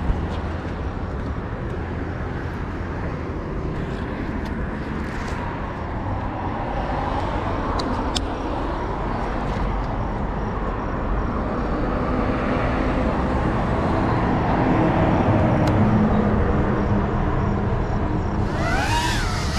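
Faint whine of a small cinewhoop quadcopter's motors (GEPRC Cinelog 35), rising and falling in pitch as it flies, over a steady low outdoor rumble. Music comes in near the end.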